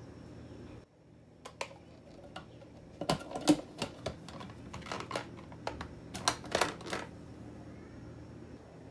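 Plastic lid of a Ninja blender pitcher being fitted and locked shut: a string of sharp plastic clicks and knocks, densest between about three and seven seconds in.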